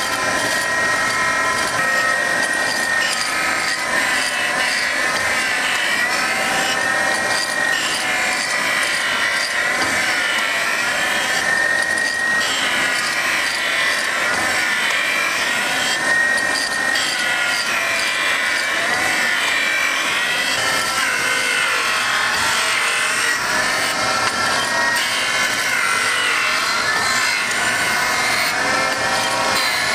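Gallmeyer & Livingston No. 25 hydraulic surface grinder's wheel grinding a metal workpiece, a continuous high grinding hiss with a whine that wavers up and down every few seconds.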